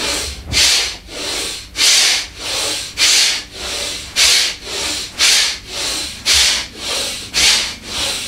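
Bhastrika (bellows breath): a man breathing hard and fast in and out, each breath a loud rush of air. Louder and softer breaths alternate evenly, about one full in-and-out cycle a second.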